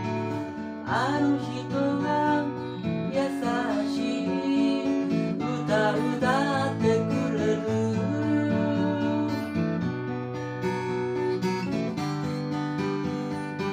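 Music: strummed acoustic guitar chords under a melody line that bends and slides in pitch.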